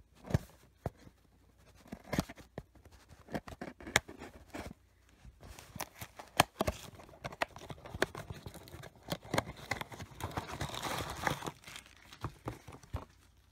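Hands opening a small cardboard blind box and tearing and crinkling the packaging inside: a scatter of clicks and snaps, with a denser stretch of crinkling about ten seconds in.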